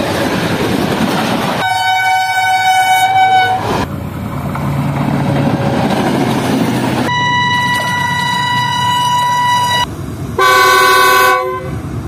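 Diesel locomotives running past close by, a steady rumble of engine and wheels broken by three air-horn blasts: one of about two seconds near the start, a longer one from about seven seconds in, and a short, very loud chord of several notes near the end.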